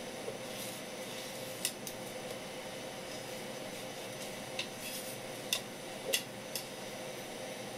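Kitchen knife blade scraping the very small scales off a gurnard on a wooden cutting board: a few short, sharp scratches and clicks, spread irregularly over a steady background hiss.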